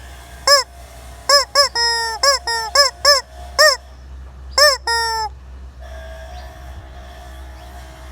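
Chicken calling loudly in a rapid series of short, arching squawks, two of them drawn out longer, for the first five seconds or so; then it falls silent.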